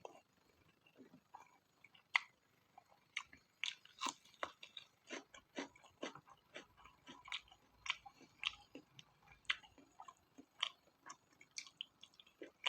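A person chewing spicy pork fat close to the microphone: an irregular run of short mouth clicks and smacks, a few each second.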